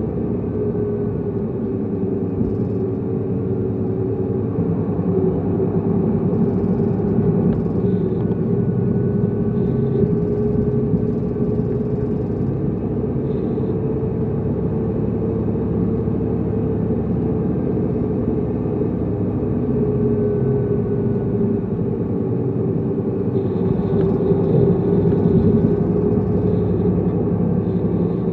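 Tokyu Bus AO1131, a city bus, driving along with its engine and drivetrain running at a fairly steady pace, the engine note rising and falling only slightly.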